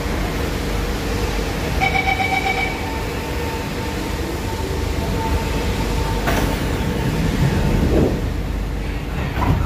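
Inside a stationary C151A metro car, the train's equipment hums steadily. About two seconds in, a short beeping door chime sounds, then a steady warning tone runs while the doors slide shut. Thuds near the end are the doors closing.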